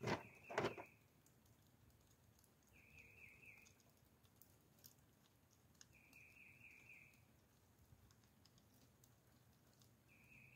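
Two sharp clicks right at the start as the bubble level's rail clamp is handled on the rifle scope. Then a bird calls faintly three times, each call a short trill of about five quick notes, three to four seconds apart.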